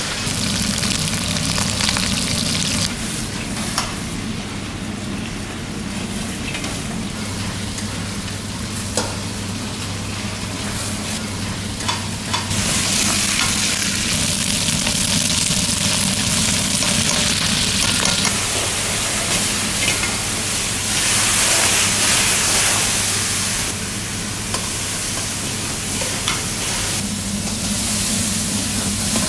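Food sizzling in hot oil in a wok, with a metal ladle scraping and clicking against the pan as it is stirred. The sizzle grows louder about halfway through and is loudest a few seconds later, over a steady low hum.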